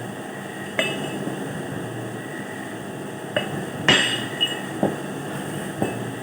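Metal parts of a well-drilling swivel knocking and clinking together during assembly: about six sharp metallic knocks with short ringing, the loudest about four seconds in, over a steady background hum.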